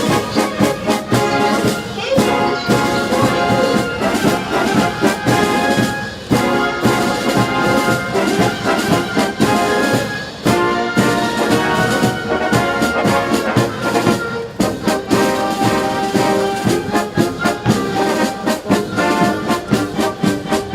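Military brass band playing: trumpets and trombones over a steady drum beat.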